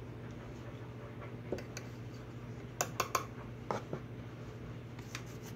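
Light, scattered clicks and ticks from hand wet-sanding a steel knife blade with 2000-grit sandpaper, a quick cluster of three about three seconds in, over a steady low hum.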